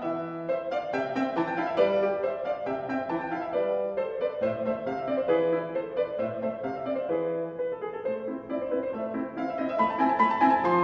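Instrumental background music, a piano playing a melody of single notes.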